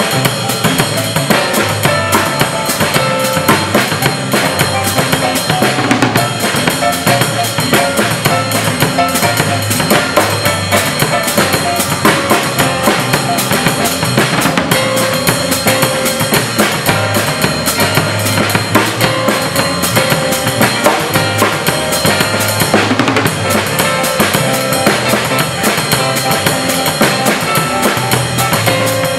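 Drum kit played with sticks in a steady, evenly spaced groove over a backing track, with bass drum, snare and cymbals.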